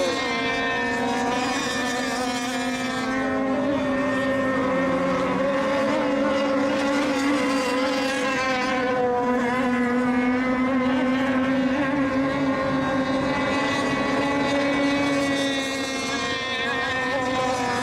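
Several radio-controlled racing boats running at full speed in a race heat. Their engines make a steady, overlapping high buzz that wavers slightly in pitch as the boats corner and pass.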